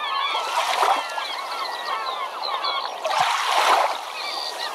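Many birds calling with short, repeated chirps over water splashing, which surges twice, briefly about half a second in and more strongly around three seconds in.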